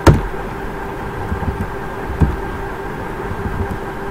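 Steady background hum with a few faint steady tones in it. A sharp click comes at the very start and another at the very end, and a softer knock falls near the middle.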